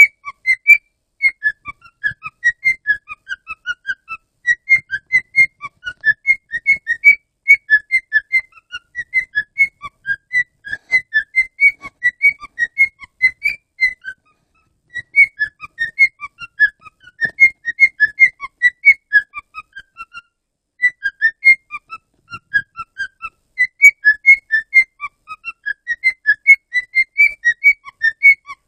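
Pet cockatiel whistling: rapid runs of short, clear, high notes going up and down in pitch, phrase after phrase with brief pauses.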